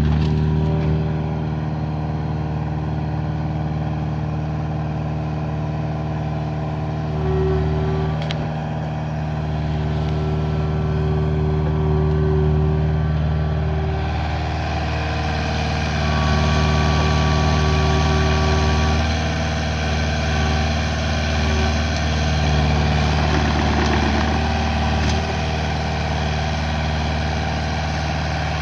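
Kubota KX057-4 mini excavator's diesel engine running steadily under load as the machine works its hydraulics to lift a heavy log, with the higher tones shifting a few times as the lift goes on.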